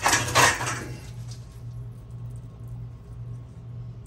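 A short, loud burst of kitchen handling noise, under a second long, right at the start. After it comes a steady low hum while oil heats in the empty pan, before any food goes in.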